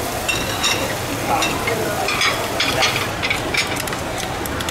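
A small metal blade scraping the black skin and grit off an abalone in its shell: a quick run of short scratches and clicks over a steady hiss.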